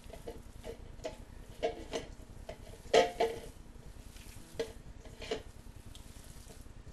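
Raw meatloaf mixture being mixed in a bowl, with irregular knocks and clicks against the bowl; the loudest knock comes about three seconds in.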